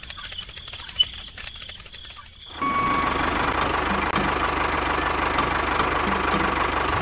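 Light irregular clicking and rattling for the first two and a half seconds. Then a steady engine-like running sound with a thin whine starts abruptly: a miniature model tractor driving while it tows another tractor on a chain.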